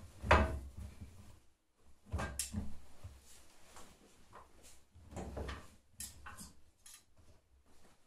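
Armfuls of cotton laundry being pushed and packed into the drum of a Candy GrandO Plus front-loading washing machine: rustling cloth and soft irregular thumps, the loudest about half a second in, with a few light clicks later on as the drum is filled to overload.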